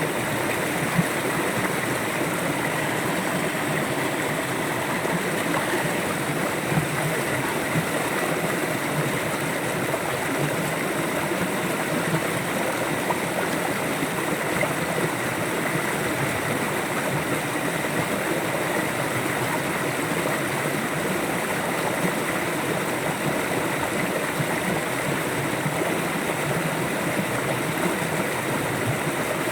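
River water flowing steadily over stones: a continuous rushing and gurgling at an even level, with the odd brief splash.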